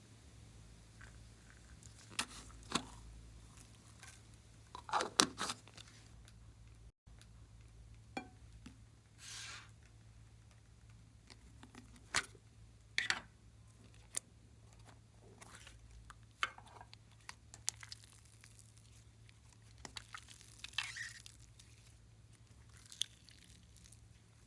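Slime being squished and stretched by hand: scattered wet clicks, pops and short crackles at irregular intervals, over a faint steady low hum.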